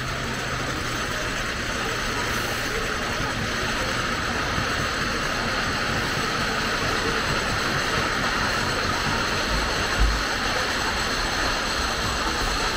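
Wooden roller coaster trains running over the track: a steady rushing rumble that grows slightly louder, with a single low thump about ten seconds in.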